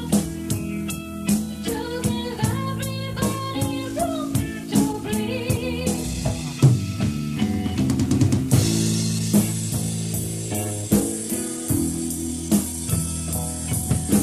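Rock band playing the song: drum kit keeping a steady beat under electric guitar and bass, with a drum fill about six seconds in, after which the cymbals ring out brighter.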